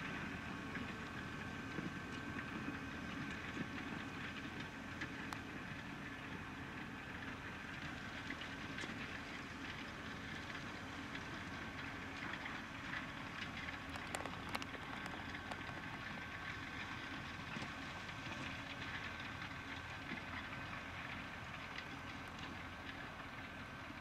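New Holland T7.210 tractor's six-cylinder diesel engine running steadily under load while pulling a mounted reversible plough through stubble, with a steady whine over the engine and light clinks and rattles from the plough. The sound fades slowly as the tractor moves away.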